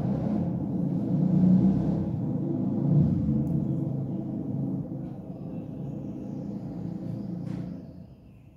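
A low, steady rumbling hum, like an engine, that swells about one and a half and three seconds in and then fades away near the end.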